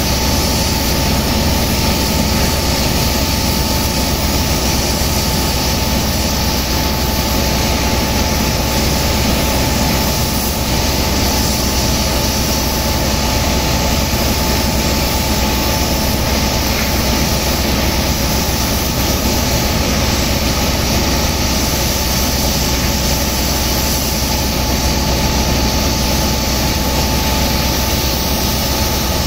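Sand-pumping engine running steadily and loudly with a constant drone, mixed with the hiss of high-pressure water jets blasting wet sand into slurry.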